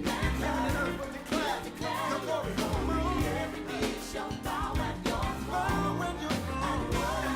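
Recorded gospel worship song playing its chorus: voices singing over a full band with a prominent bass line.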